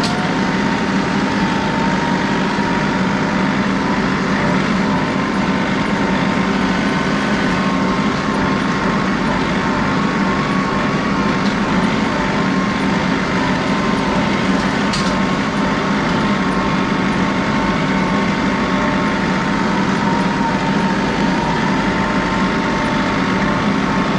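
John Deere 3038E compact tractor's three-cylinder diesel engine running steadily, with a thin steady whine over it.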